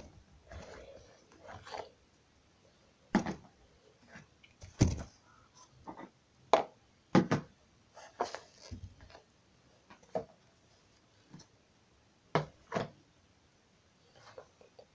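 Slime being squeezed and worked by hand, giving about ten short, irregular pops and clicks.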